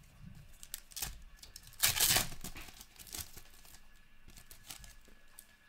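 Foil wrapper of a hockey card pack being torn open and crinkled by hand. The loudest rip comes about two seconds in, with lighter crackles before and after.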